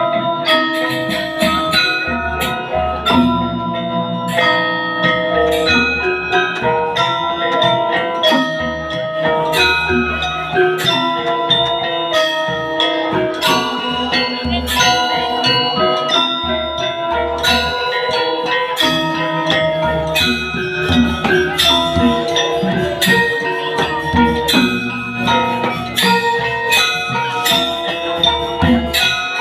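Balinese gamelan playing: bronze metallophones struck in fast, dense patterns over lower ringing gong tones, without a break.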